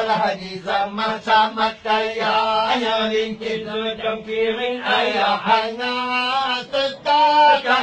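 Men's voices singing a Malay comic folk song in a chanting style, over a steady low note held underneath.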